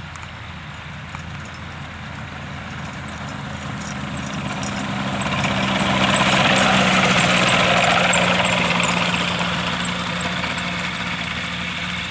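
Rotax 462 two-stroke twin engine and pusher propeller of a Pegasus XL-R microlight trike running at low power as it taxis on grass, getting louder as it comes past, loudest about six to eight seconds in, then fading as it moves away.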